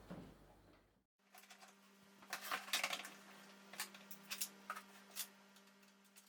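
Faint, scattered clicks and light taps of hard plastic and metal parts being handled and fitted together while assembling a cordless string trimmer, over a steady low hum.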